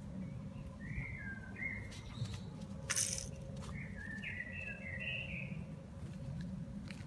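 A small bird chirping in two short bouts, about a second in and again around four to five seconds in. A single sharp noise about three seconds in is the loudest moment, over a steady low outdoor rumble.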